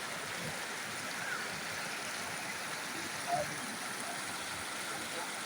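Floodwater rushing in a steady, even noise, with faint voices briefly heard a couple of times.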